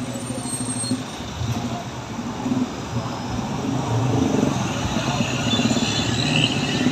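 Road traffic noise: heavy-vehicle engine rumble and tyre noise, growing louder over the second half as a large vehicle draws close.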